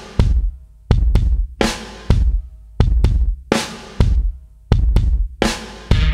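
Background music: a drum beat of bass drum and snare hitting about twice a second, with sustained instrument tones coming in near the end.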